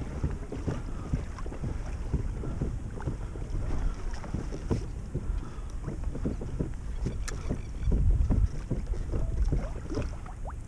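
Wind buffeting the microphone, over the irregular slap and lap of small waves against a kayak hull. A stronger gust of wind comes about eight seconds in.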